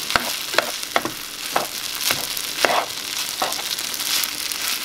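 Rice and vegetables frying in butter in a small nonstick skillet over high heat: a steady sizzle, stirred with a slotted spatula that scrapes across the pan a little under twice a second.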